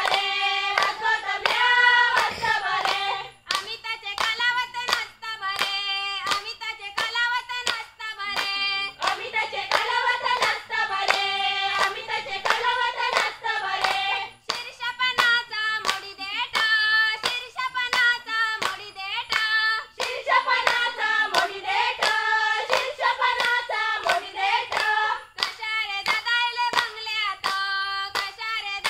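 A group of women singing a Konkani folk song together, with hand claps keeping a steady beat under the melody and short breaks between sung phrases.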